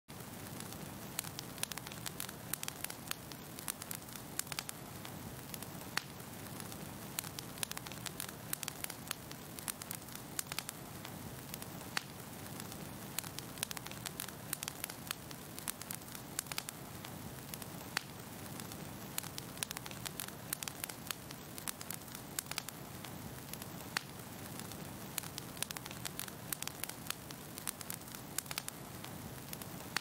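Fire crackling: a continuous irregular run of sharp pops and snaps over a steady low rush of burning.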